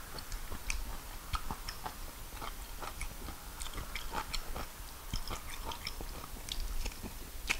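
Someone chewing a mouthful of fufu and peanut soup: a steady run of soft, wet clicks and smacks, with fingers squishing fufu through the soup.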